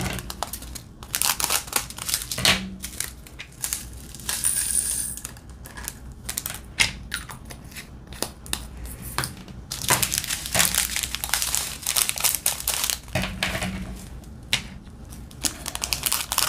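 Crinkling plastic packets of diamond-painting drills and small resin drills clicking and rattling against a plastic tray and storage container, with scissors cutting open a drill packet near the end.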